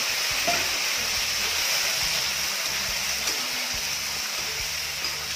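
Mud crab pieces frying in hot oil with garlic and ginger in a wok, a steady sizzle just after they hit the oil, while a spatula stirs and scrapes them around the pan.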